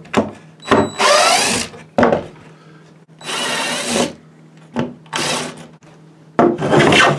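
Cordless drill-driver running in several short bursts, with a whine that rises and falls, as it backs out and drills out the screws holding wooden cleats to a lid. Near the end a longer rough scraping burst, a hand plane stroked over the wood.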